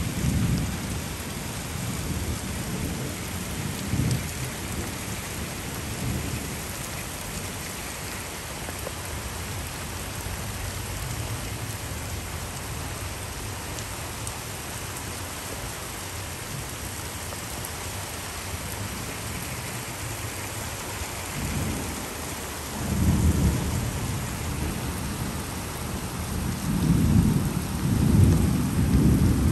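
Heavy rain falling steadily, with thunder rumbling: low rumbles in the first few seconds, again about three-quarters of the way through, and a louder, longer rumble near the end.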